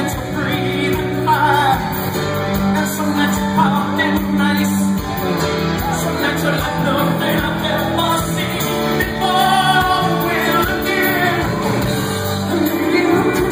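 Loud stage-show music with a singing voice over it.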